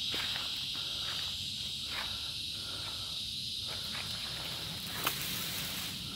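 Cicadas buzzing in a steady high-pitched drone, with a sharp click about five seconds in.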